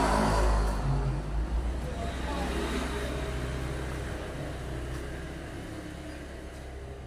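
A motor vehicle passing close by: its engine and road noise are loudest at the start and fade steadily as it moves away.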